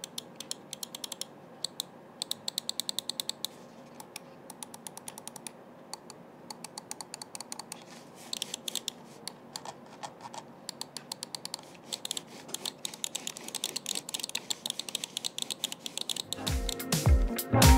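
Clicks of a DAREU A950 Pro wireless gaming mouse worked by hand: button and scroll-wheel clicks in quick runs with short pauses between them. Music comes back near the end.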